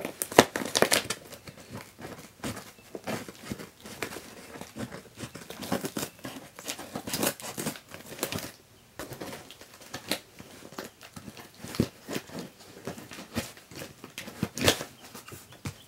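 Clear packing tape being ripped off a cardboard shipping box, with the cardboard flaps scraping and rustling as the box is pried open, in short uneven rips throughout.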